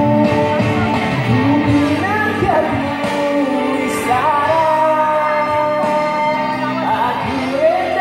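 A man singing into a microphone over backing music, the voice holding long notes that slide between pitches.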